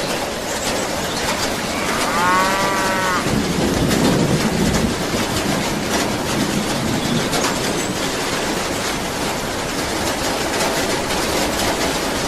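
A single cow moo about two seconds in, lasting about a second, over a steady noisy background with scattered clicks.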